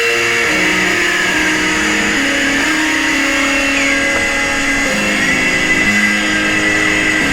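Loud music of held notes stepping from one pitch to the next, over a continuous high tone with small slides in pitch.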